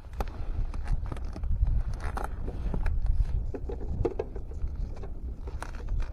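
Wind rumbling on the microphone, with scattered light knocks and scrapes of fishing gear being handled in a boat.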